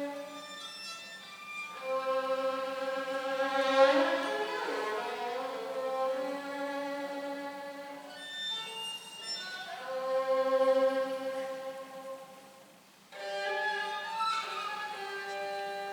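Slow music played on a bowed string instrument such as a violin, in long held notes that swell and fade across several phrases, with a short pause about thirteen seconds in before a new phrase begins.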